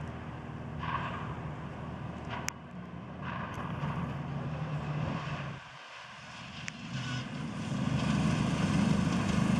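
Mitsubishi Lancer Evolution IX rally car's turbocharged four-cylinder engine revving hard on gravel, its note rising and falling, with a sharp crack about two and a half seconds in. The engine drops away briefly around six seconds, then comes back and grows louder as the car approaches.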